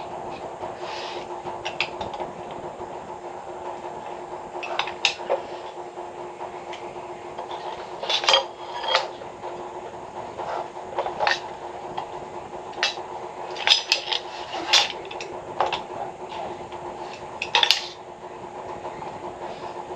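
Light metallic clinks and knocks come at irregular intervals, a few louder ones around the middle and near the end, over a steady hum.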